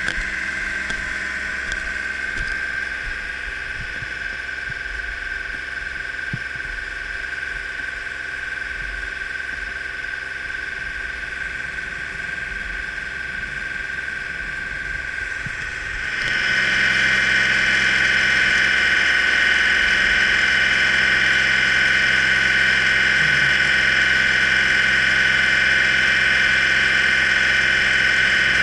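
A fire tanker's engine running steadily with a high whine. It gets clearly louder about sixteen seconds in and holds at that level.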